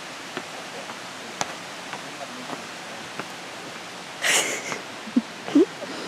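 Steady outdoor hiss with a few faint clicks, then a sudden loud rushing burst a little over four seconds in, followed by two short voice sounds near the end.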